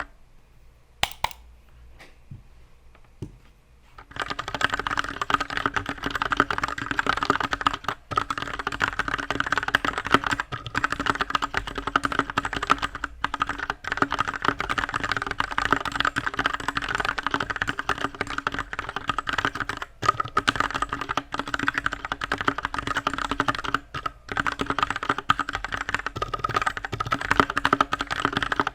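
Typing test on an RK84 Pro aluminium-case mechanical keyboard with stock, unlubed RK red linear switches. A few isolated key clicks for the first few seconds, then fast, continuous typing from about four seconds in.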